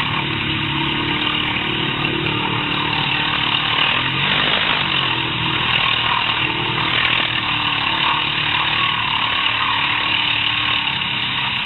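Quad bike engine running under load, its revs rising and falling, over a steady hiss while the quad drives through shallow water.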